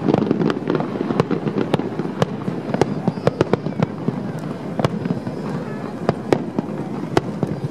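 Aerial firework shells bursting: an irregular run of sharp bangs and crackles over a steady low rumble.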